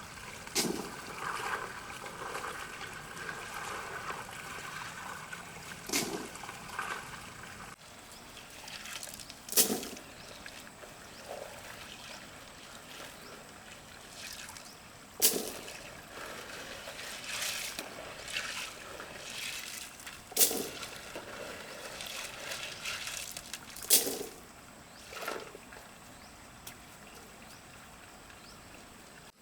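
Water trickling steadily, broken about seven times by short, sharp knocks or splashes, which are the loudest sounds.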